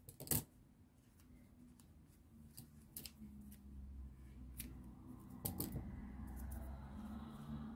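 A sharp click just after the start, then faint small clicks of scissors snipping crochet yarn, with a soft rustle of the work being handled in the second half.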